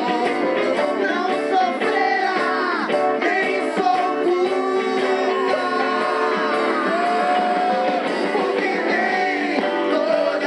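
Live band music with several women singing together over electric guitar and keyboards. The sound is thin, with no deep bass.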